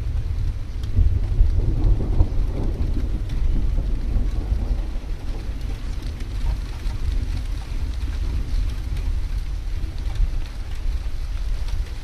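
Low rolling thunder rumbling, swelling between one and four seconds in and then easing, with rain falling steadily.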